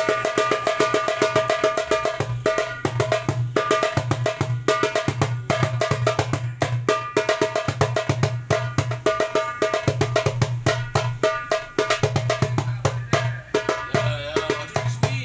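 A 9-inch darbuka with a Remo synthetic (mylar) head played by hand in a fast, unbroken rhythm: deep bass strokes under quick, crisp rim strokes, with the head ringing on between strokes.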